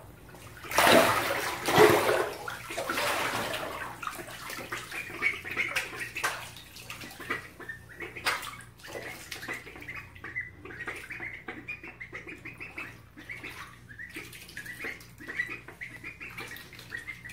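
Ducklings splashing and diving in a bathtub of water, a loud burst of splashing in the first few seconds, followed by a long run of short, high peeps over small splashes.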